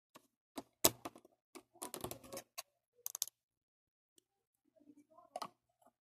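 Plastic Lego pieces clicking and knocking as they are handled and pressed together on a wooden floor: one sharp click about a second in, a rattling run of clicks around two seconds, and a few more scattered clicks later.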